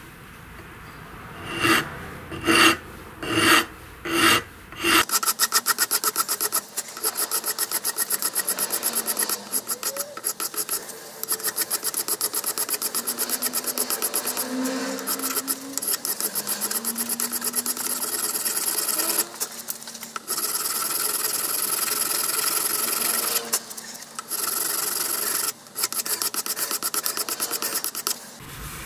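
Hand file scraping across a brass hammer head clamped in a vise. There are about five separate strokes in the first few seconds, then steady, fast filing with a few short breaks.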